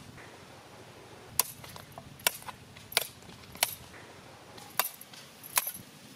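Sickle blade chopping at a stick on the ground: six sharp strikes at uneven intervals, from about a second and a half in to near the end.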